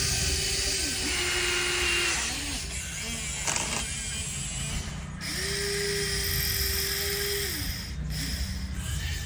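Small electric motors of a toy RC excavator whining in two runs of about two and a half seconds each, each one spinning up, holding a steady pitch, then winding down.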